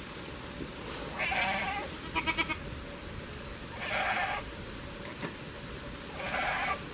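Goat bleating three times, each call about half a second long, with a quick stuttering run of short notes between the first two calls.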